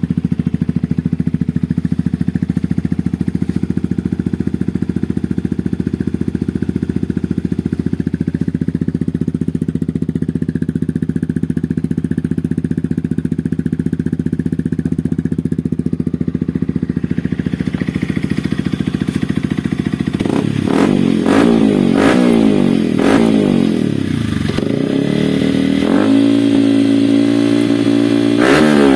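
Yamaha WR155's single-cylinder four-stroke engine through an aftermarket imitation Akrapovic silencer, idling steadily for about twenty seconds, then revved up and down several times in quick blips.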